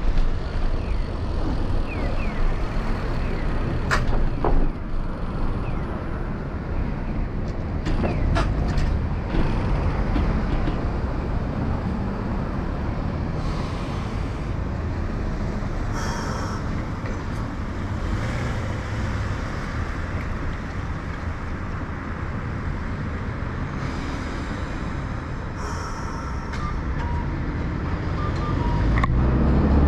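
Street traffic heard from a moving bicycle: a steady low rumble, with a few sharp clicks and some short higher hisses.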